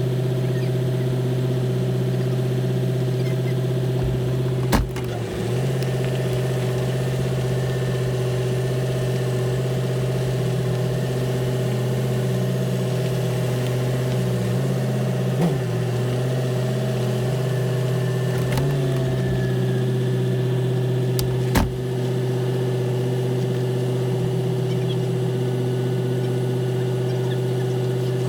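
Engine running steadily at an even speed, with a few sharp knocks or clunks at intervals, about four in all.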